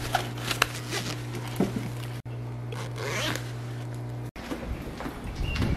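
Zipper of a mesh pet carrier bag being pulled shut, with a few sharp clicks of handling and a longer scratchy zip about three seconds in, over a steady low hum. After an abrupt cut near the end, low knocks and rumble.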